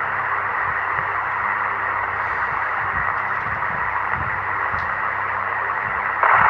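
Steady hiss of radio static on an open channel between transmissions.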